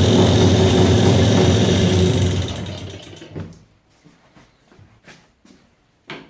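Jawa 350 type 638 two-stroke twin engine idling steadily, with a knock that the owner suspects could be the piston group, the crankshaft labyrinth seal or the centre main bearing. About two and a half seconds in the engine stops and runs down, leaving only faint scattered clicks and a sharp click near the end.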